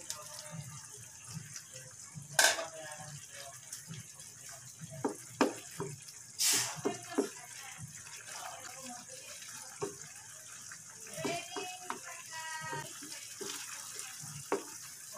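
Eggs and a red mixture frying in a nonstick pan with a steady sizzle. A few sharp knocks and scrapes of a spatula against the pan come in the middle, the loudest a little over two seconds in and about six seconds in.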